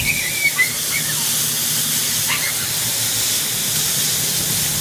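Steady hiss of a spray directed at an air conditioner condenser unit during cleaning, with a faint steady hum underneath.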